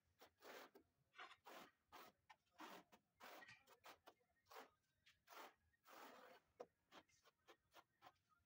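Quiet, repeated short scraping strokes, about two a second and unevenly spaced, as glass mosaic tile is rubbed and pressed into tile adhesive.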